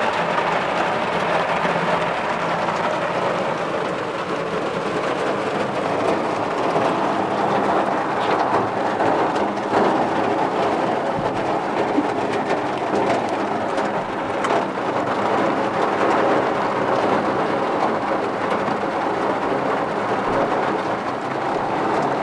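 Heavy rain drumming on the roof and windows of a small Citroën C15 van, heard from inside the cabin: a steady, dense hiss of many small drop taps.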